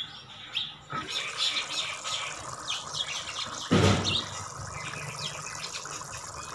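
Moong dal bubbling and popping as it boils in a metal pot. A metal lid clinks near the start, and there is a louder thump about four seconds in.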